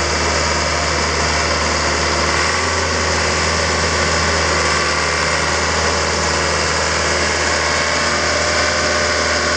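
Diesel engine of a Caterpillar CP433 sheepsfoot compactor idling steadily, a constant low hum with a slight change in its low note about two and a half seconds in.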